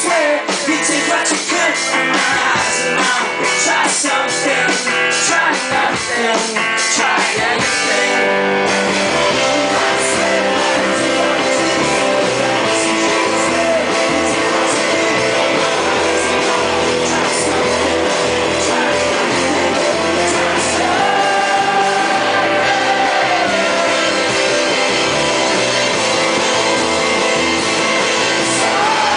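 Rock band playing live: electric guitars, drums and a sung vocal, loud and steady. The low end fills in about seven seconds in, and a long note is held near the middle.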